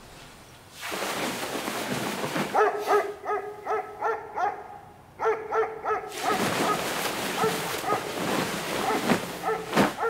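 A dog barking and yelping in quick repeated cries, over a hiss that starts about a second in.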